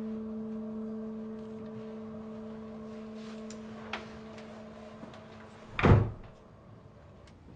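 A steady low hum slowly fades away, then a single heavy thump comes about six seconds in.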